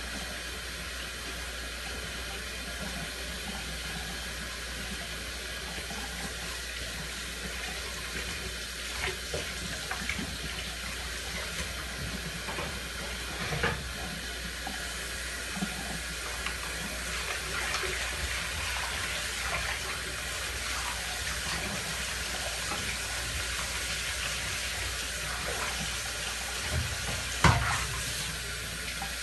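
Tap water running into a sink while dishes are washed by hand, with scattered clinks and knocks of dishware. The loudest knock comes near the end.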